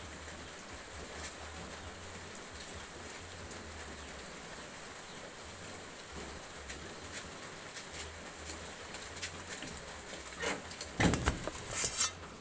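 Quiet background with scattered faint ticks, then loud knocks and rustling near the end as the phone recording is picked up and handled.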